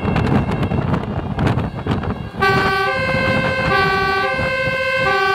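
A fire truck's two-tone siren starts suddenly about halfway through, alternating between a low and a high note about every two-thirds of a second. Before it there is a rough, noisy rumble.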